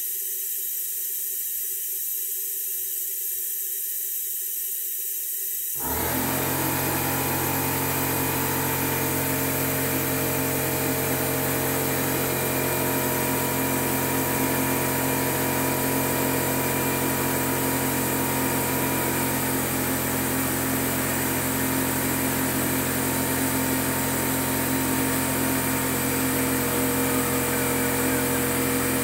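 A steady suction hiss as old gear oil is drawn out of the differential housing. About six seconds in, a motor starts and then runs steadily with a low hum until the end.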